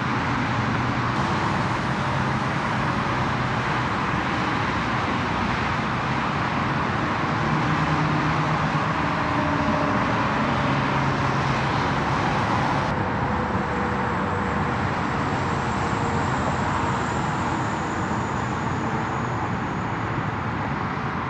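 Steady rush of freeway traffic noise from passing vehicles, its character changing abruptly about a second in and again about two-thirds of the way through.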